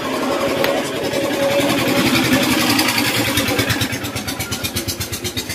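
A motorcycle engine running close by, getting louder over the first two seconds, then settling into an even, pulsing beat from a little past the middle.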